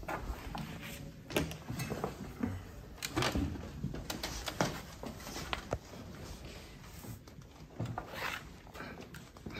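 Scattered light knocks, taps and rustles from people moving and handling papers and scripts at a table.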